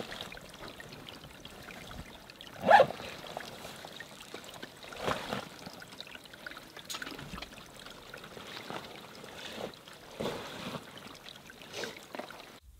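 Water trickling steadily over rocks in a small mountain creek, with a few louder short handling noises from a gear bag, the loudest about three seconds in.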